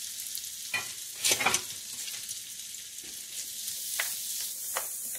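Diced onion, carrots and celery sizzling in melted butter in a pan on medium heat, with a steady frying hiss. A utensil stirs and scrapes them a few times, the loudest scrapes just over a second in.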